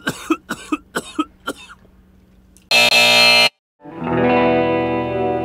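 Title theme music: a run of short, sharp hits about three a second, then a loud distorted burst, a brief gap, and a sustained distorted electric guitar chord.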